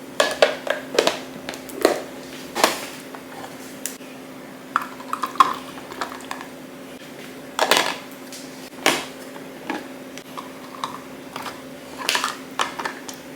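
Containers clinking, tapping and clattering in an irregular series as items are handled and put away to restock a fridge, over a steady low hum.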